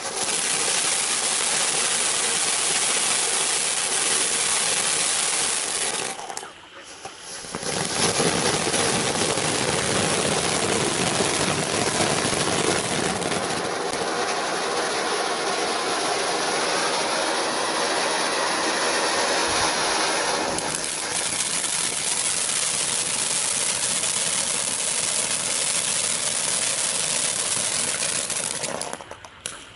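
Ground fountain firework spraying sparks with a loud, steady hiss, dropping out briefly about six seconds in before starting again. It fades near the end.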